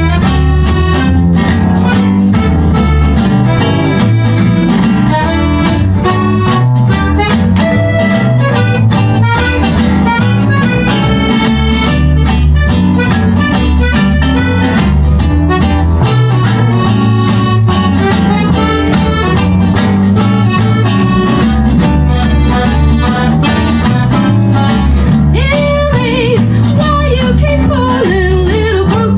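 Gypsy jazz (manouche) played live by accordion, acoustic guitar, mandolin and upright bass, with the accordion prominent over a steady rhythm and bass line. A woman's voice comes in singing near the end.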